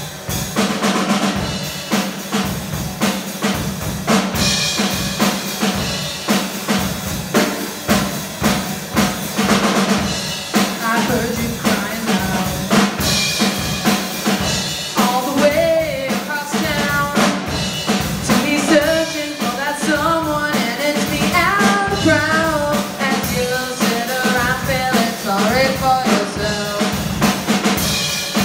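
Live rock band playing: drum kit and electric guitar, with a singer joining in about eleven seconds in.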